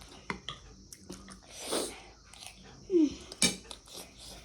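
Eating at a table: cutlery clicking against bowls and plates, with chewing. There is a breathy swell near the middle, and a short falling vocal sound followed by a sharp clink about three seconds in.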